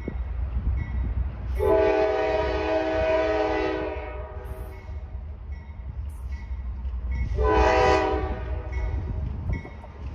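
Horn of an approaching CSX freight locomotive sounding for the grade crossing: one long blast of about two and a half seconds, then a short blast a few seconds later. Under it the crossing's electronic bell dings faintly and steadily over a low rumble.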